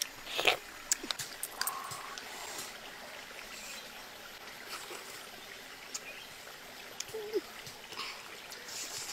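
Close-up eating sounds of a person chewing cooked mud crab meat: scattered soft clicks and wet mouth noises.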